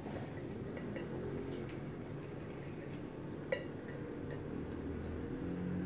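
Calico cat eating from a stainless steel bowl: faint licking and chewing, with a few small clicks against the bowl, the sharpest about three and a half seconds in, over a steady low hum.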